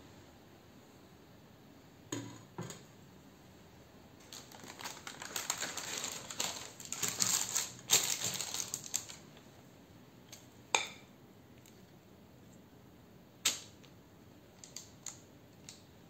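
Baking paper crinkling and rustling as it is pressed into a loaf pan, after two knocks about two seconds in. A couple of sharp taps and a few small ticks follow.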